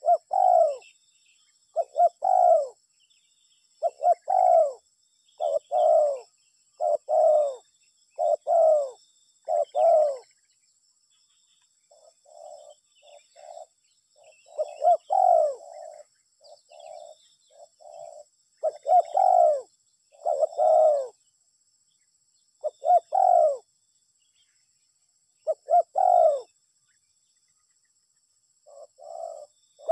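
Spotted dove (tekukur) cooing over and over, each coo a short note that arches down in pitch. The loud coos come about one a second, broken midway by softer, choppier notes before the loud calls resume in twos and threes.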